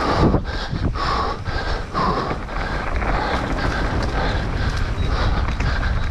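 Mountain bike ridden fast down a rough trail: tyres rolling over dirt and roots, with irregular clattering knocks from the bike. Heavy wind rushes over the microphone.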